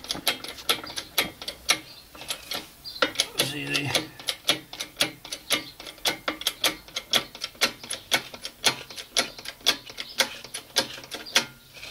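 Hydraulic bottle jack being pumped by hand under a tractor, its pump lever clicking in a steady rhythm of a few clicks a second as it lifts.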